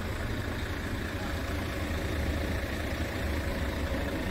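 Diesel engine of a Scania P truck idling steadily, a low even rumble heard from inside the cab.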